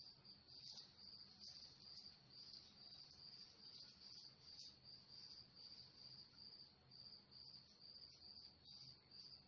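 Near silence, with the faint, steady high-pitched chirping of a cricket, pulsing about twice a second.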